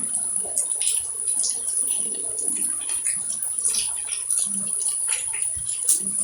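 Running, splashing water with irregular splashes and drips, over a steady high-pitched tone.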